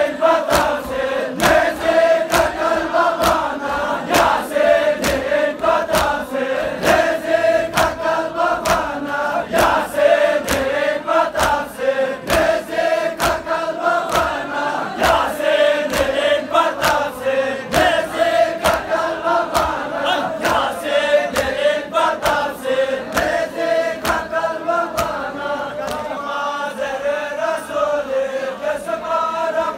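A crowd of men chanting a Muharram mourning lament (nauha) in unison, with the sharp hand slaps of chest-beating (matam) keeping time.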